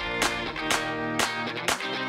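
Background music led by a strummed guitar, a chord about twice a second in a steady beat.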